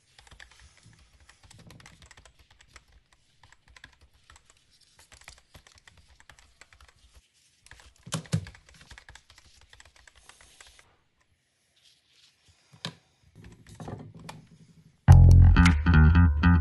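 Faint scattered clicks and rustles of handling, with a louder knock about eight seconds in; then music with guitar and a strong bass line starts suddenly near the end and is the loudest sound.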